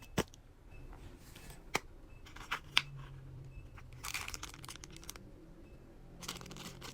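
Close-up eating sounds of a sushi meal: a few sharp clicks and taps as the food is handled, then two short crinkling, rustling bursts about four and six seconds in.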